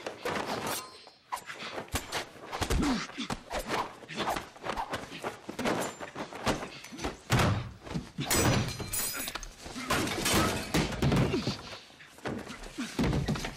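Hand-to-hand fight: rapid punches, thuds and bodies slamming against tiled walls and floor, with strained grunts. A sharp crash with a brief ringing clatter comes past the middle.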